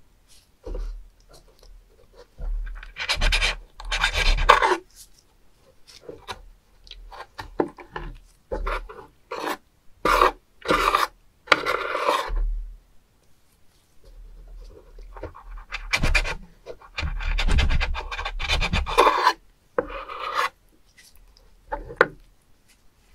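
Kitchen knife cutting live spoon worms and scraping across a wet wooden cutting board, in irregular scraping strokes lasting a second or two, with short sharp scrapes in between.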